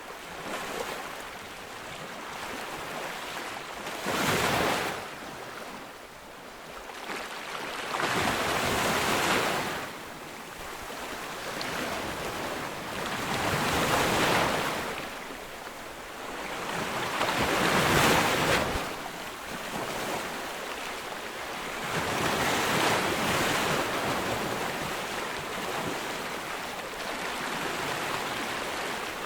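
Ocean waves breaking on a beach: a steady surf hiss that swells into five louder crashes, a wave every four to five seconds.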